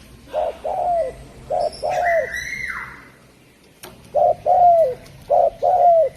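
Spotted dove (derkuku) cooing in two phrases, each a short coo, a drawn-out falling coo, then another short and another falling coo. A brief higher call from another bird falls away between the two phrases, and there is a single click just before the second.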